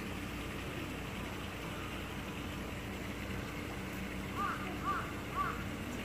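Steady hiss and low hum of the pool's water circulation, with three short rising-and-falling chirps about half a second apart near the end.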